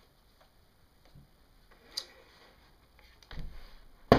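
Quiet room with a few faint scattered clicks, then handling noise and a sharp click near the end as the receiver of an old candlestick telephone is picked up off its hook.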